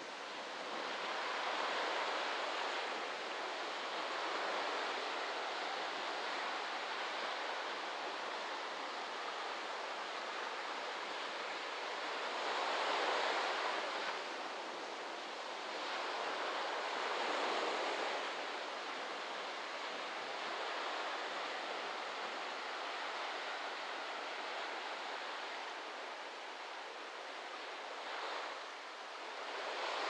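Small waves breaking and washing onto a sandy beach: a continuous hiss of surf that swells louder every several seconds as individual waves break.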